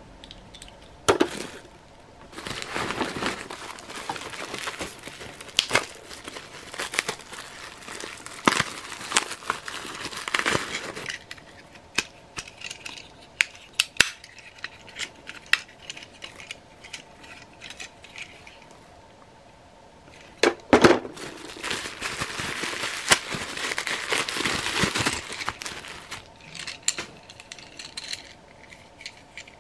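Crumpled newspaper and bubble-wrap packing crinkling and rustling as hands dig through a box, in several long bouts. Between the bouts come scattered sharp clicks and clinks of hard plastic Transformers toys being handled.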